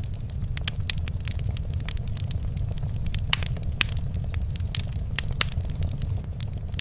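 Fireplace fire crackling: irregular sharp pops and snaps, a few louder ones in the middle, over a steady low rumble.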